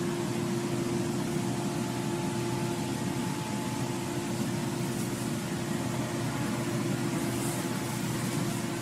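A steady machine hum: constant noise with an unchanging low tone running through it.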